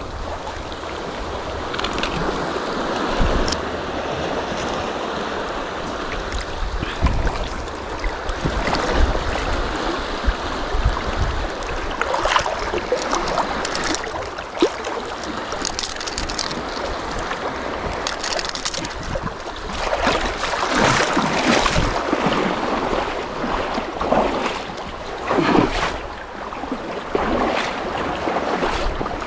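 Wind buffeting the microphone over a steady wash of shallow seawater, with irregular splashes as someone wades through it.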